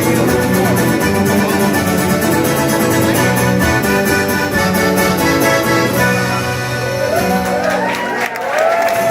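Live band music with sustained chords; about eight seconds in, rising and falling whoops from the audience come in over it.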